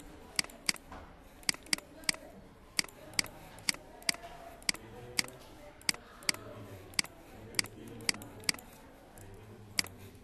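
Computer mouse buttons clicking: about eighteen short, sharp clicks at uneven intervals, sometimes two close together, over a faint low background.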